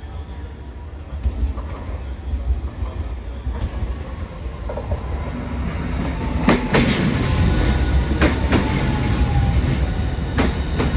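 Hiroden low-floor articulated tram approaching and passing close by. Its rumble grows louder until about halfway, and then its wheels clack sharply over the rail joints a few times, with a faint whine.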